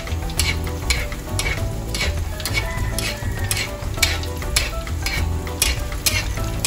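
Floured stuffed milkfish deep-frying in a wok of hot oil: a steady sizzle broken by frequent sharp crackles and pops, several a second. A metal spatula stirs and scoops the oil beside the fish.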